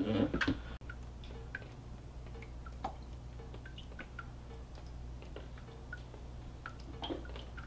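Water slowly dripping from a draining papermaking mould of wet pulp into a tub of water: scattered, irregular small plinks over a steady low hum, with a brief handling knock right at the start.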